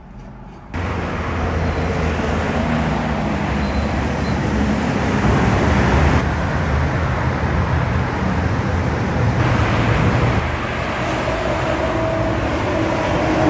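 Highway traffic with heavy multi-axle dump trucks passing: a steady mix of engine hum and tyre noise that grows louder about a second in.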